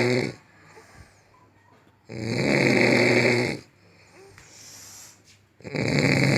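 Loud snoring in slow, regular breaths: one snore ends just after the start, a full snore of about a second and a half comes about two seconds in, and another begins near the end, with a faint breath between.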